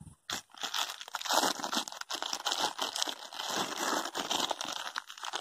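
A plastic bag crinkling and rustling unevenly, as when a bag of salt is opened and handled.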